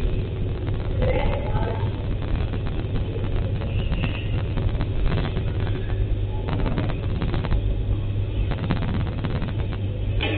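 Steady low hum and rumble of kitchen machinery, heard through a security camera's built-in microphone, which makes it dull and thin.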